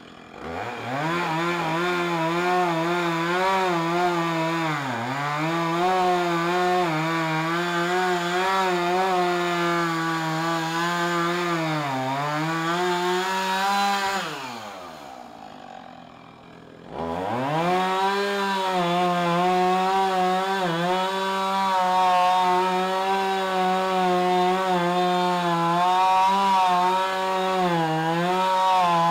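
Husqvarna two-stroke chainsaw cutting through a tree limb at full throttle. Its pitch dips briefly a couple of times as it loads up in the wood. About halfway it drops back to idle, then revs up again for a second cut and eases off at the very end.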